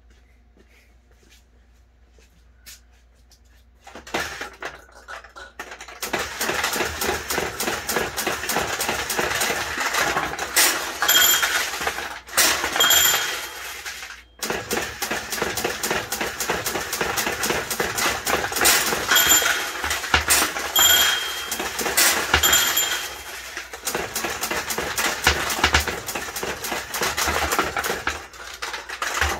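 Mechanical pachinko machine being played, starting about four seconds in: a dense, continuous clatter of small balls clicking and rattling down through the pins. Short metallic dings ring out several times along the way.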